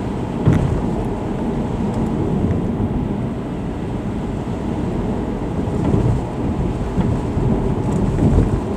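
Steady road and engine rumble inside the cabin of a Subaru Legacy cruising at about 40 mph, mostly tyre noise on the road surface. One light knock about half a second in.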